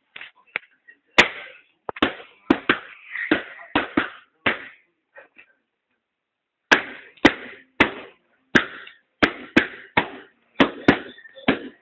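Latex party balloons being popped one after another: a string of sharp bangs, about fifteen in all, with a pause of about two seconds in the middle and quicker pops towards the end.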